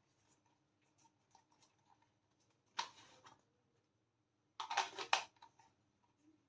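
Faint handling of small objects: a brief scrape about three seconds in, then a quick cluster of light clicks and scrapes near five seconds.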